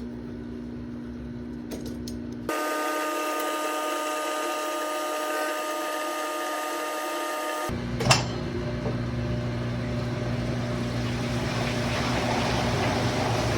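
Washing machine drain pump running, a steady motor hum as it pumps the remaining water out of the machine, its tone changing abruptly about 2.5 and 8 seconds in, with a single click about 8 seconds in.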